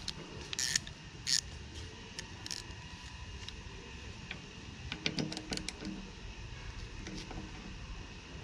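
Hand ratchet with an Allen bit tightening the tank-ring bolts on a motorcycle fuel tank: scattered sharp metallic clicks, two louder ones in the first second and a quick run of ratchet clicks about five seconds in.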